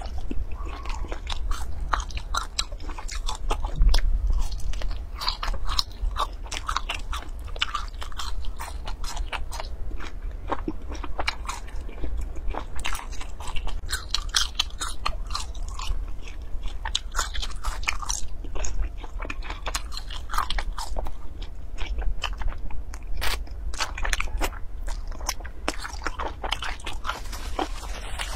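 A person biting and crunching crisp spice-coated food sticks and chewing them close to a lapel microphone, a dense, irregular run of crackling bites.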